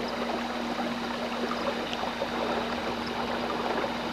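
Electric trolling motor running with a steady hum, over a constant wash of water noise as the small boat moves along.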